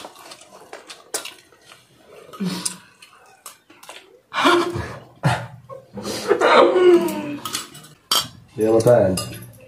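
Chopsticks and a spoon clicking and scraping against bowls while eating, a string of small clicks throughout, broken by short stretches of voices that are the loudest sounds.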